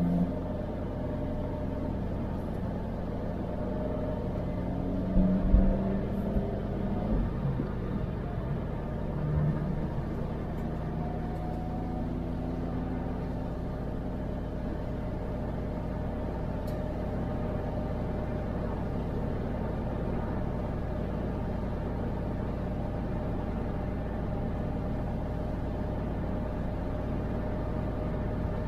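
A car driving on a wet road, heard from inside the cabin: a steady low engine and road rumble with tyre hiss, with engine tones that drift slowly with speed. There is a brief thump about five seconds in.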